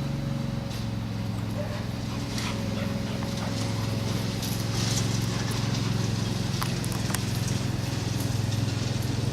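Lawn mower engine running steadily with a low, even hum.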